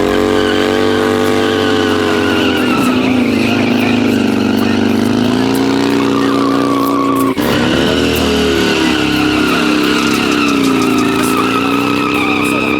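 Harley-Davidson motorcycle engine held at high revs while the rear tire squeals against the pavement in burnouts and donuts, the pitch rising and falling. The sound breaks off abruptly about seven seconds in, then the same kind of revving and squealing resumes.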